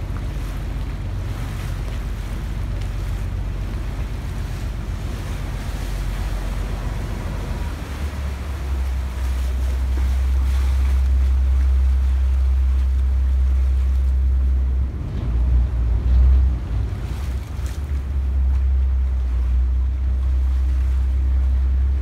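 Vaporetto water bus under way: a low engine rumble and water rushing past the hull, with wind buffeting the microphone. The low rumble grows louder about eight seconds in.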